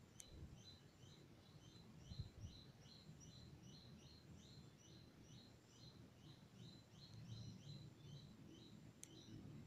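Faint bird chirping in near silence: short high chirps repeating evenly about three times a second, with a sharp click just after the start and another near the end.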